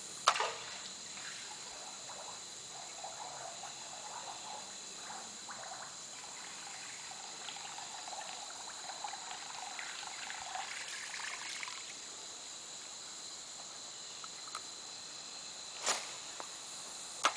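Faint trickling and gurgling of river water over a steady high-pitched hum, with a sharp click right at the start and another near the end.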